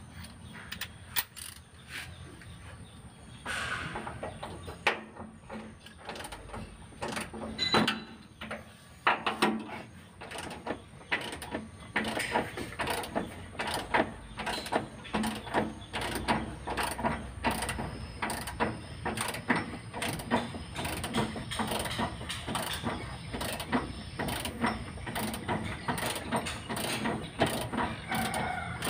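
Hand ratchet clicking as bolts on a van's left engine-mount bracket are worked loose: scattered clicks at first, then from about halfway in a steady run of quick, regular clicks, a few a second.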